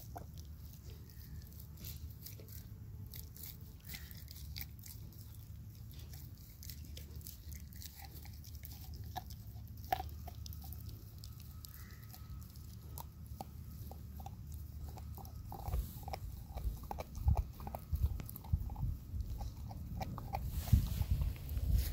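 Saint Pyrenees puppy gnawing and chewing on a raw meaty bone: scattered crunches and clicks of teeth on bone, more frequent after about eight seconds, with a few louder low knocks near the end.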